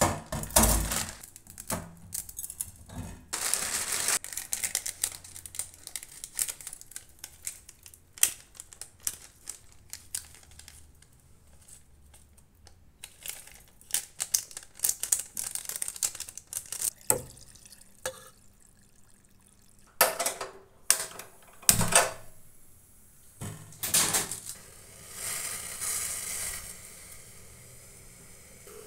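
Food-prep handling at a stainless-steel sink: scattered clicks and knocks of steel bowls and splashes of water, with short rustling spells as a spice sachet is opened and emptied.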